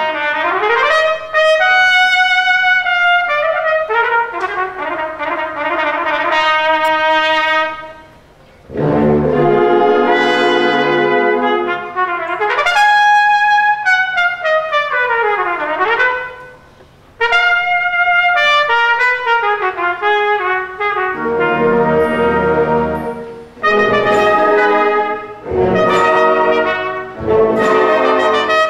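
Trumpet solo with band accompaniment, the soloist playing fast runs that sweep up and down, broken by two short pauses.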